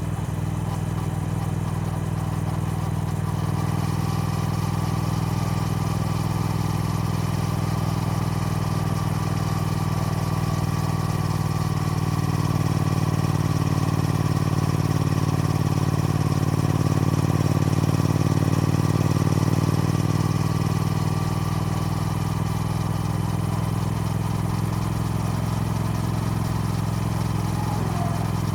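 Triumph Speed Twin's parallel-twin engine running steadily, growing a little louder for several seconds midway and then easing back.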